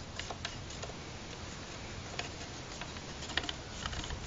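Light clicks and taps of plastic model-kit walls and a thin styrene sheet being handled and jiggled, with a small cluster of clicks about three and a half seconds in, over a low steady rumble.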